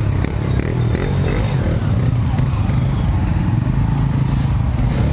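A motor vehicle's engine running steadily close by, a continuous low hum, in slow, stop-and-go jammed traffic.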